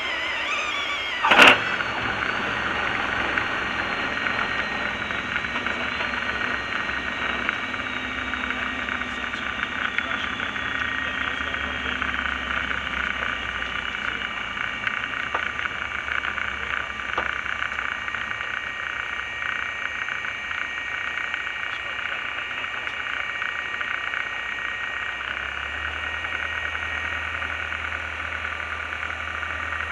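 Diamond DA20 light aircraft's engine and propeller noise heard inside the cockpit as the plane rolls out and slows to taxi. There is a brief sharp knock about a second and a half in. A faint high tone slowly falls over the first ten seconds, and a low hum grows stronger near the end.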